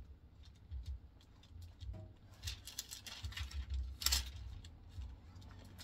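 Faint handling noise: scattered soft rustles and light clicks, the loudest a rustle about four seconds in, over a low rumble.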